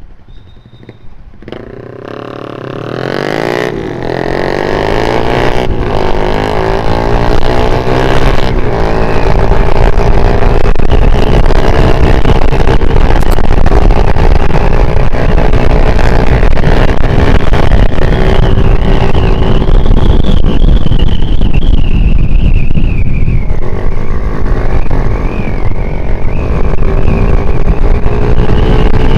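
Yamaha MX motorcycle's single-cylinder four-stroke engine revving up as the bike pulls away about two seconds in, then running loud and steady under load, its pitch climbing slowly as it gains speed. The rider says it is slipping because the clutch plates are worn out.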